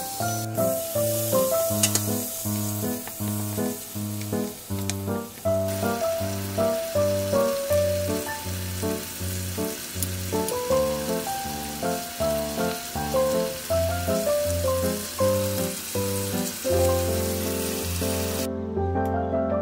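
Scallops sizzling as they fry in melted butter and garlic in a frying pan, under background music with a steady beat. The sizzling cuts off suddenly near the end, leaving only the music.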